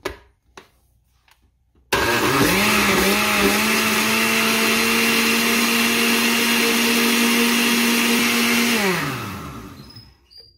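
A countertop blender is switched on about two seconds in and runs at a steady speed, blending a liquid cake batter of eggs, oil, kefir and sugar. Near the end it is switched off, and the motor spins down with a falling hum. A single click comes just before it starts.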